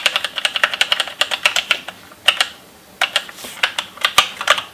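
Rapid clicking in irregular runs, several clicks in quick succession with short pauses between runs.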